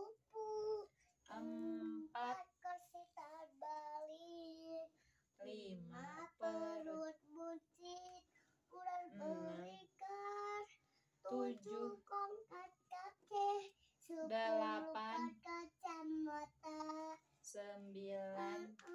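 A young boy singing a sing-song chant in short phrases, with brief pauses between them.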